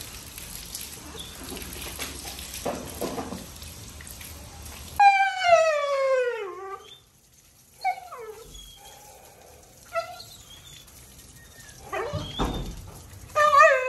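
Afghan hound howling during a bath: one long howl about five seconds in that slides down in pitch, then a few short whines. Before it, a steady hiss of water spraying from a hose.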